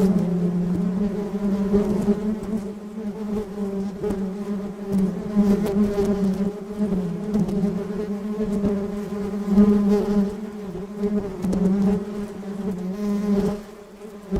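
A bee buzzing in flight, a continuous low hum that wavers in pitch and loudness as it moves about, fading briefly near the end before swelling again.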